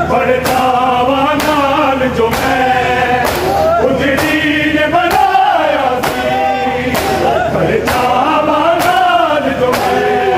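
Male voices chanting a Punjabi noha (Shia mourning lament) over the rhythmic chest-beating of matam, hands slapping bare chests in a steady beat about once a second.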